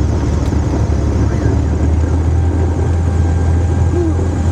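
Cessna 210 Centurion's piston engine running with a steady low drone while the aircraft taxis to the ramp after landing.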